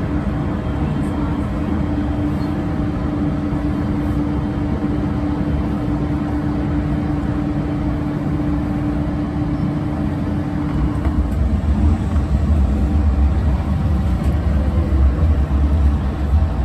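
Hong Kong MTR M-train running through a tunnel, heard from inside the car: a steady rumble of wheels and running gear with a steady hum over it. About eleven seconds in the hum drops out and the low rumble grows louder.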